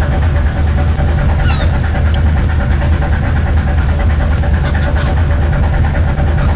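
Fishing boat engine running steadily with a deep, even hum. A few short, falling high-pitched calls sound over it, one about one and a half seconds in.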